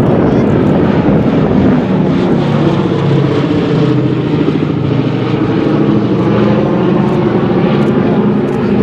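Propeller airplane's engine droning loudly and steadily, a low pitched hum over a rough engine noise.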